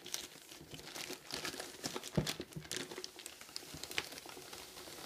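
Paper packaging crinkling and rustling in irregular crackles as a box is slid out of it by hand.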